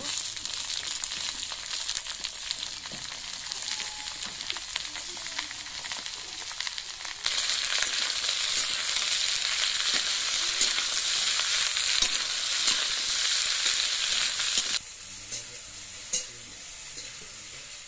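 Cut brinjal pieces frying in hot oil in an iron kadai with onion and chilli, sizzling as they are stirred with a spatula. The sizzle gets louder about seven seconds in and drops back a couple of seconds before the end, with a few sharp clicks near the end.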